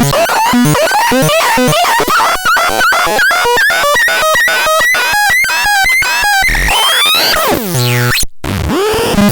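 Electronic sound-effect tones from the TUTON a1: a string of quick warbling chirps, about three a second, then a long falling sweep, a brief cutout about eight seconds in, and a new warbling pattern after it.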